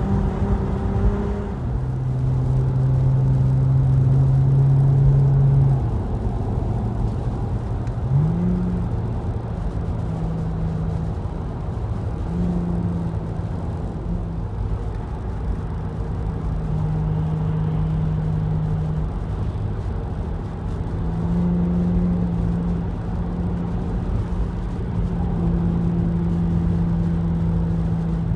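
Car driving on the highway, heard from inside the cabin: a steady rumble of road and tyre noise under a low engine hum. The hum's pitch shifts up and down, with one short rising sweep about eight seconds in.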